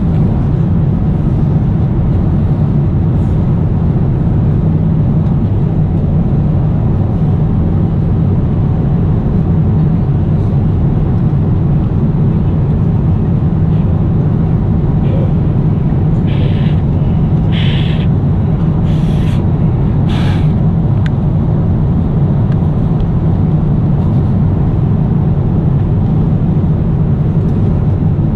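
Steady low drone of a jet airliner cabin in flight. A few brief fabric rustles come about two-thirds of the way through.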